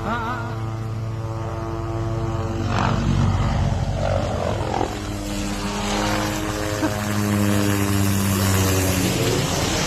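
Helicopter flying close by, its rotor and turbine making a steady drone whose pitch shifts as it moves past.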